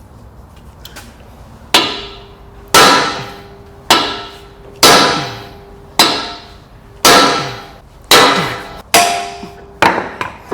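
Hammer striking metal with heavy blows, about one a second, nine in all, the last one weaker; each blow rings briefly with a metallic tone.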